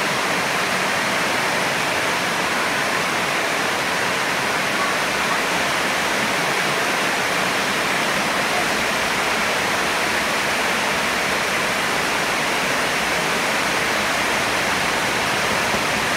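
Heavy rain falling, heard through an open window as a steady, even hiss without let-up.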